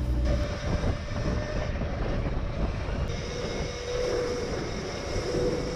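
Wind buffeting and tyre rumble from an electric pit bike rolling along a footbridge deck at speed. A faint steady electric-motor whine comes in about halfway through.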